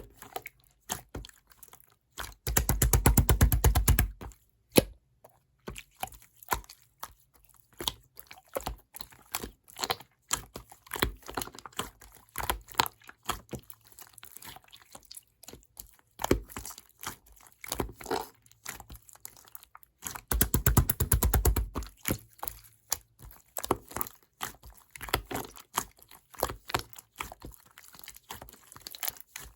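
Clear slime being squished and stretched by hand: a stream of small wet clicks and pops, with two louder runs of rapid crackling, about three seconds in and again about twenty seconds in.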